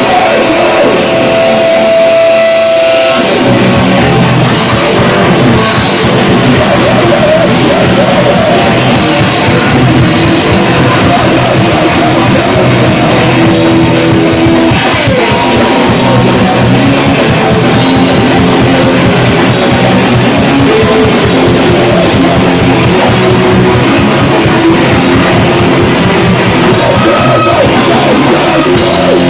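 Loud rock band playing live: a guitar alone for about three seconds, then the full band comes in with drums.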